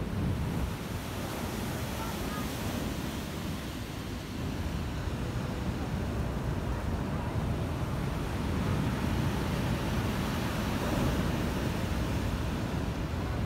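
Storm surf breaking and washing up a pebble beach, a continuous rush of waves that swells louder in the second half, with wind buffeting the microphone.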